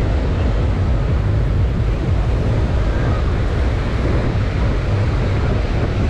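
Surf breaking and washing up the sand in a steady rush, with wind rumbling on the microphone.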